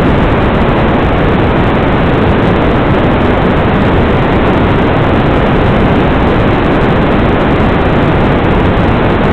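Loud, steady hiss of radio static on an analog FPV video receiver's audio channel, the sign that the drone's video signal has been lost.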